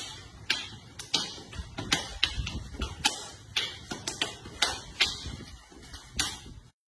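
Rattan sticks clacking in a fast sumbrada stick-fighting drill: sharp strikes about two a second at an uneven rhythm. The sound cuts off abruptly near the end.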